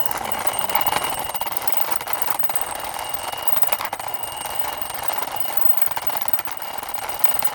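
Plastic toy police helicopter pushed along by hand: a steady, dense clicking rattle from its wheels and mechanism.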